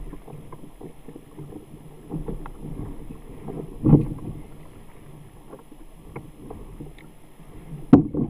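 Muffled water sloshing against a plastic kayak hull, with two sharp knocks on the boat, one about four seconds in and one near the end.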